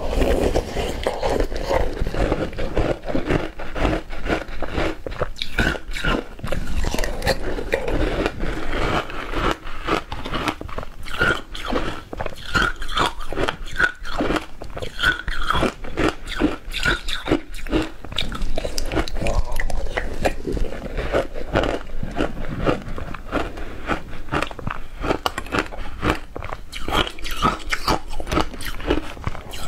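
A person biting and chewing frozen ice balls, close to clip-on microphones: a dense, unbroken run of sharp crunches.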